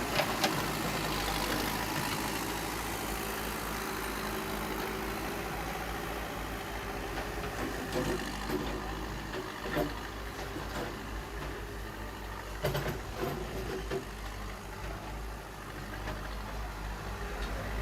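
Bulldozer engine running steadily at demolition work, with a few scattered knocks and clatters.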